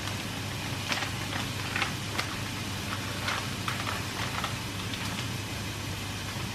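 Kitchen hob sound: a steady hum and hiss with a pan of food frying. From about a second in to about five seconds in there is a scatter of light clicks and crackles as a plastic food packet is handled.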